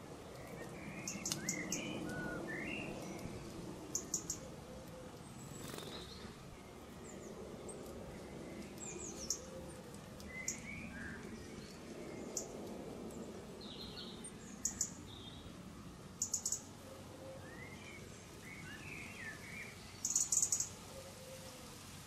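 Small garden birds calling: clusters of short, very high chirps every few seconds, the loudest and longest burst near the end, with softer, lower twittering in between.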